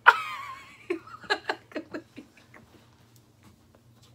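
Laughter: a high squeal to start, then a quick run of short laughs that die away about halfway through.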